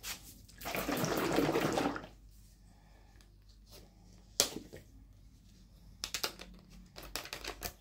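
Plastic one-litre motor oil bottle being handled and opened: a loud rushing noise for about a second and a half near the start, a sharp click midway, then a run of quick plastic clicks near the end as the screw cap is twisted off.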